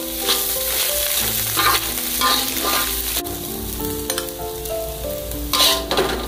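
Turkey berries sizzling in a hot wok while a metal spatula stirs and scrapes them against the pan. The sizzle thins out about halfway through, and the spatula keeps scraping as the berries are scooped out.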